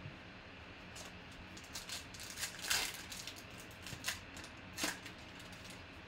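Foil wrapper of a 2020 Panini Legacy football card pack crinkling and tearing as it is ripped open by hand, in a run of crisp crackles, the loudest a little under three seconds in.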